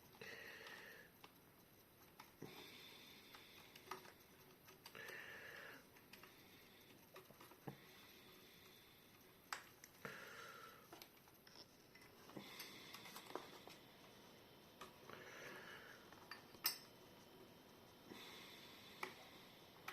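Faint handling sounds of a nylon cable tie being fastened around PC wiring: scattered small plastic clicks and ticks, with soft breaths in between.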